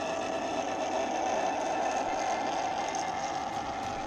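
N-scale model train running on the track: a steady hum of the electric motor and rumble of the wheels on the rails, swelling slightly in the middle.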